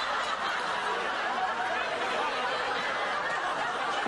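A studio audience laughing, steady and unbroken.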